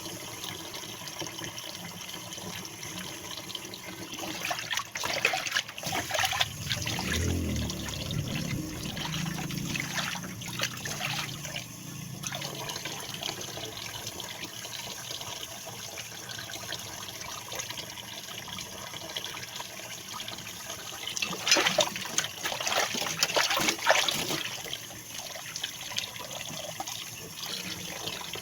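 Water running from a tap into a sink, with two spells of louder splashing: one from about five seconds in lasting several seconds, another about 21 seconds in.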